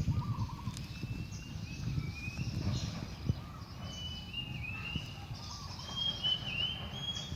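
Birds chirping in short, quick calls that come more often in the second half, over low knocking and rustling with a few sharp clicks.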